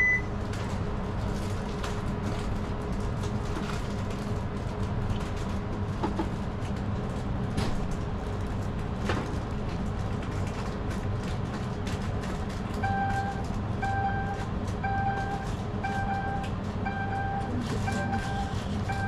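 Steady low background rumble with a few faint clicks. About two-thirds of the way in, an electronic device starts beeping regularly, about once a second, one mid-pitched beep at a time, some seven times.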